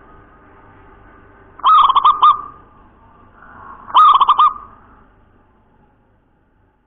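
Zebra dove (perkutut) cooing: two song phrases about two seconds apart, each a quick run of several notes. A faint low hum runs beneath them.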